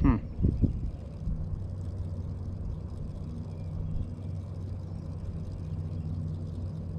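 Steady low hum of a motor vehicle engine running, with a few short thumps in the first second.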